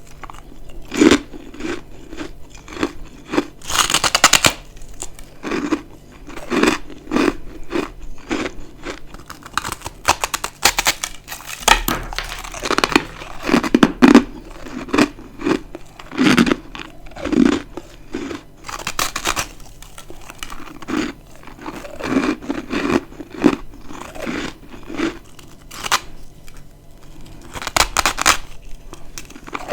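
Dry, crispy humidifier freezer frost chunks being bitten and chewed: a continuous run of sharp crunches and crackles, with low chewing pulses about once a second.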